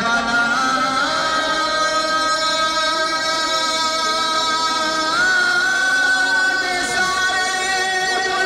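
A man's voice chanting in long, drawn-out held notes, the pitch stepping up about a second in and again about five seconds in, over the murmur of a crowd.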